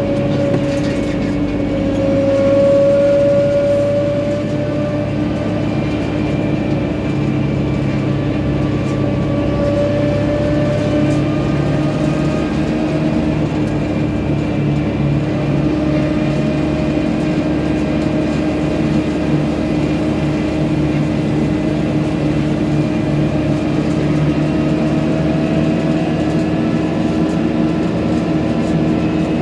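Tractor's diesel engine running steadily at road speed, with a brief swell in level about three seconds in, heard from on board above the bonnet.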